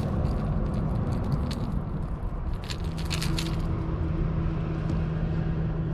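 Scattered clicks and rattles of a lure and hooks as a hooked white bass is handled and unhooked, over a steady low rumble. About three seconds in, a steady low hum joins and holds.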